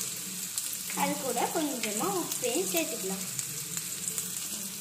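Chopped onions sizzling and crackling in hot oil in a miniature pan, stirred, with a steady hiss throughout. A brief voice-like sound rises over the frying between about one and three seconds in.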